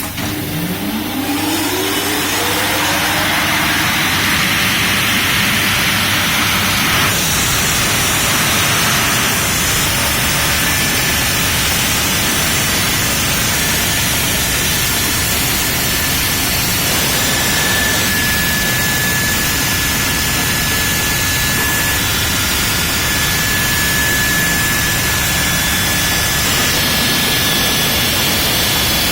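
Jayem FC1100 concrete cutting machine running: its pitch rises over the first few seconds as it speeds up, then it holds a loud, steady noise.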